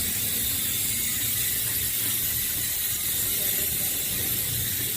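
Six-pawl bicycle hub freewheeling as the wheel spins, its pawls clicking so fast that they run together into a steady ratcheting buzz.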